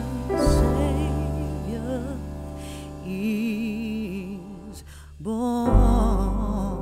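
Music: a slow melody of wavering, vibrato notes over sustained low bass notes, dipping briefly a little past five seconds before swelling louder again.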